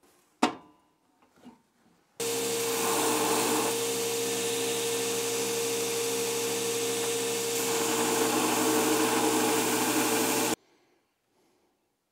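Wilton belt grinder running with a steel heading tool being ground against the abrasive belt: a steady hum with a hiss over it. A sharp click comes about half a second in; the grinding starts suddenly about two seconds in and cuts off abruptly near the end.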